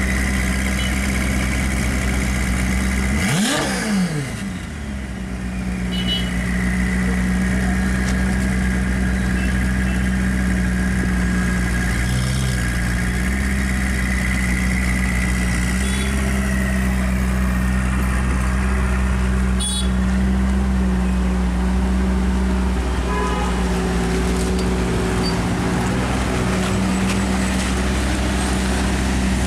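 Ferrari 488's twin-turbo V8 idling steadily, with one short rev that rises and falls about three and a half seconds in.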